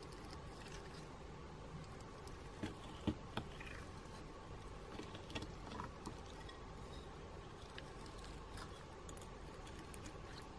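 Clear slime with sequins and beads being stirred with a plastic spoon in a glass container: faint, soft squishing, with three sharp clicks about three seconds in and a few smaller ones a couple of seconds later.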